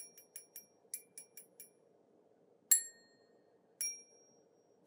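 Metal cocktail jigger clinking and ringing as it is handled: a run of light quick taps, then two louder single clinks near the middle and later on, each leaving a brief high ring.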